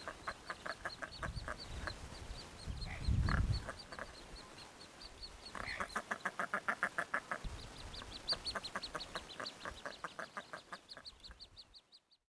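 Common goldeneye ducklings calling in quick trains of short, high peeps from a nest box, about five or six a second, mixed with a lower series of repeated calls. A brief loud low rumble comes about three seconds in.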